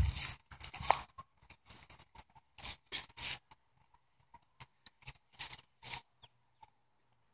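Flock of free-range brown hens clucking, heard as short scattered calls and clicks that thin out and fade near the end.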